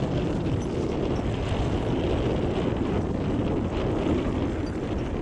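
Wind buffeting the microphone: a steady, loud low rumble of gusts with no separate events.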